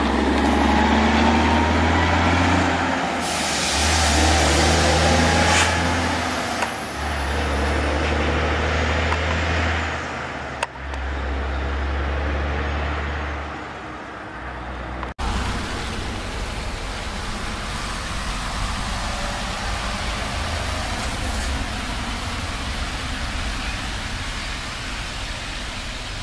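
Diesel engine of a heavily loaded log truck pulling hard, dropping off briefly about every three seconds as it shifts up through the gears. About halfway through, this gives way to a steady rushing hiss of a semi truck driving on a wet road.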